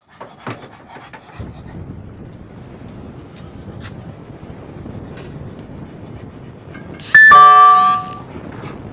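A loud bell-like ring of several tones at once, lasting under a second, about seven seconds in, over faint rustling and scratching.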